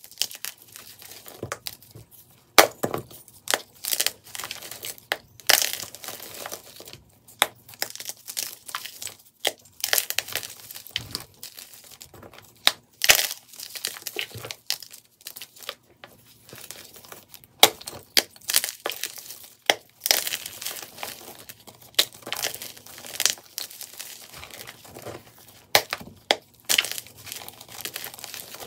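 Hands crushing fresh blocks of SPRI gym chalk: a quick, irregular run of dry crunches and crumbles. The playback is sped up.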